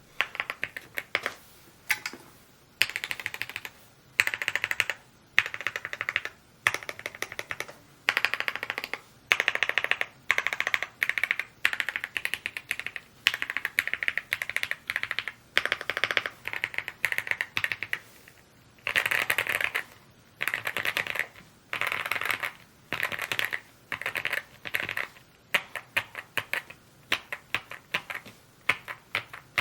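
Rainy75 mechanical keyboard being typed on: fast runs of key clicks in bursts about a second long with short pauses between them.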